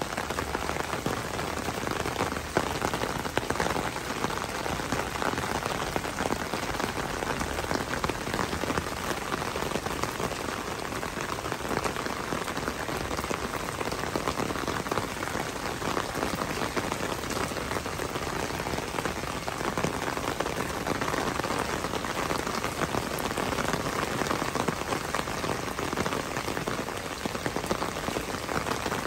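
Steady rain falling on wet paving and puddles, an even, dense patter of drops.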